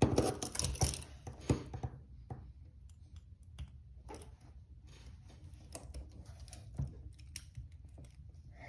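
Steel handcuffs and their chain rattling and clicking while a short metal handcuff key is worked into the keyhole, with a loud clatter in the first second or so, then scattered small clicks.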